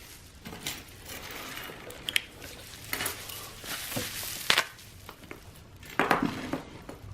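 Rummaging through a box of packed items: rustling, with scattered knocks and a couple of light clinks as things are moved and set down. The sharpest knock comes about four and a half seconds in.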